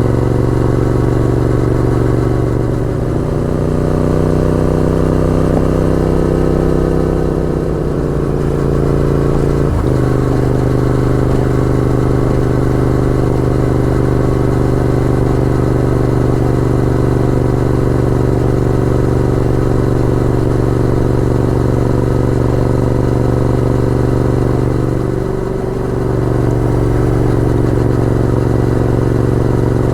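Honda VTR1000F's V-twin engine running on the move. Its note shifts over the first ten seconds, then holds steady, with a brief dip in loudness about 25 seconds in.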